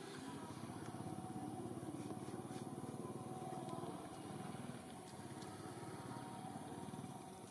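A small engine running steadily in the background, a fast even hum that is a little louder for the first few seconds and eases off about five seconds in.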